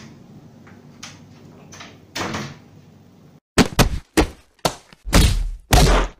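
A softer knock about two seconds in, then after a moment's silence a rapid run of loud thuds and whacks, about eight of them, the later ones deeper and longer.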